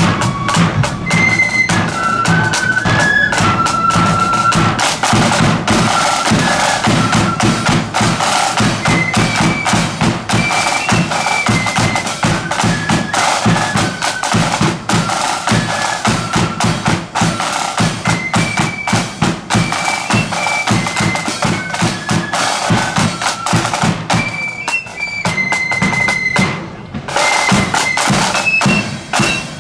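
Marching flute band playing a high melody over rapid side-drum rolls and a bass drum.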